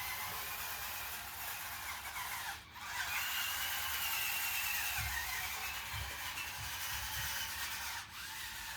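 Small electric motors and gearboxes of a 1/16-scale RC bulldozer whining, the pitch rising and falling as it changes speed, with low knocks now and then. It cuts out briefly twice, about two and a half and eight seconds in.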